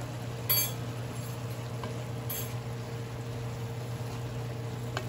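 Pork, chicken and Chinese sweet sausage sizzling as they saute in a pan, over a steady low hum. Two short clinks come about half a second and two and a half seconds in.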